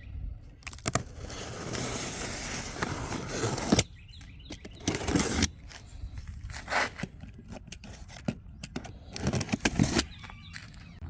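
Rustling and scraping as packaging and parts are handled, with scattered knocks; the loudest, densest rustle lasts about three seconds near the start.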